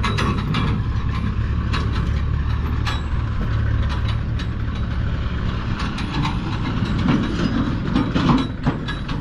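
Eicher tractor's diesel engine running hard under a steady low rumble, with continual clanking and rattling, as the tractor tries again to pull its trolley out of the mud where it is stuck.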